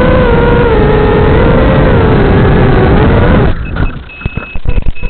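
FPV drone motors running with a loud whine that wavers slightly in pitch, cutting off suddenly about three and a half seconds in. A scatter of sharp knocks and a high, interrupted electronic beeping follow.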